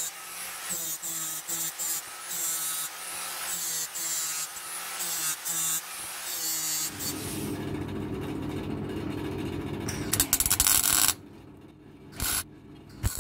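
Handheld power tool abrading rusty cast-iron parts. The motor hums while metal is pressed to it in short strokes. About seven seconds in it changes to a heavier, louder grinding, then stops abruptly near the end, leaving a few light scrapes and knocks.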